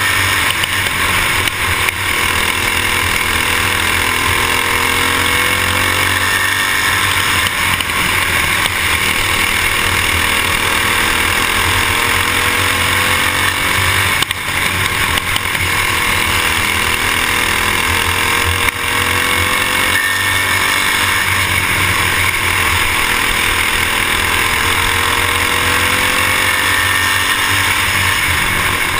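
Racing kart's small single-cylinder engine running hard under race load, its pitch climbing and falling back again and again as the kart accelerates down each straight and lifts for each turn, over a steady rush of noise.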